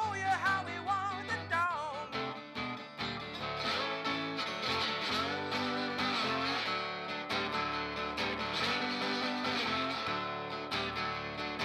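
Steel-string acoustic guitar playing a blues riff, picked and strummed with sharp note attacks. A wordless sung vocal line wavers over it for the first two seconds or so, then the guitar carries on alone.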